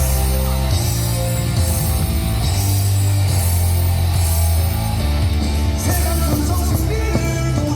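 Loud rock music playing over a baseball stadium's loudspeakers, with a heavy, steady bass line; voices singing come in during the last couple of seconds.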